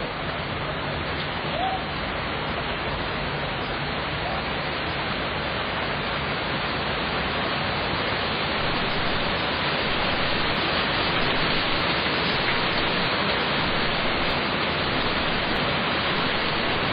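Steady rain, a dense even hiss that grows slightly louder about halfway through.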